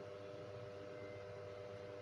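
Steady electrical hum with a few constant tones over a faint hiss.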